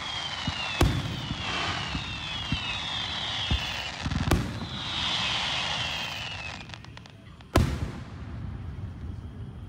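Aerial fireworks display: shell bursts boom about one, four and seven and a half seconds in, the last the loudest. Between them run a crackle of small pops and several high whistles that fall in pitch.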